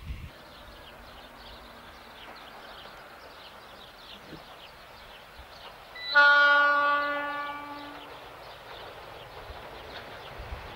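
Metre-gauge diesel locomotive sounding its horn: one long single-note blast about six seconds in, fading away over a second or two as the train approaches.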